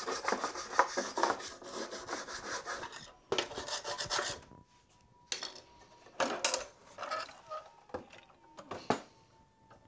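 Cloth rag rubbing over the dirty sheet-metal fan shroud of a Porsche 912 engine in quick back-and-forth wiping strokes for about three seconds, then a shorter burst of rubbing, followed by scattered scrapes and light clicks as dirt is worked off the shroud.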